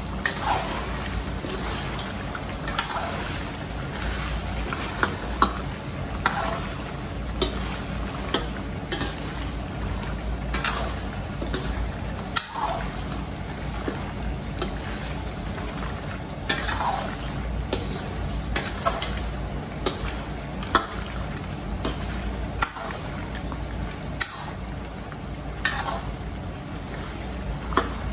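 A metal spatula stirs and scrapes mutton and tomatoes around a metal karahi, with frequent sharp clinks against the pan, over a steady sizzle of frying in ghee.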